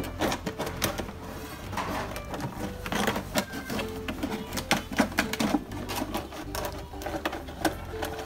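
Scissors cutting through a thin plastic water bottle: a fast, irregular run of snips and crackles.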